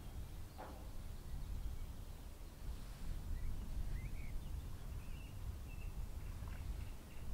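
Outdoor ambience: a steady low rumble with faint, scattered bird chirps. There is a brief soft scuff about half a second in, and the chirps come several times in the second half.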